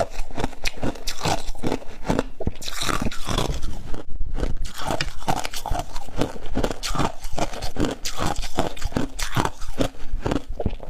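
Freezer frost being bitten and chewed: a fast, continuous run of crisp crunches.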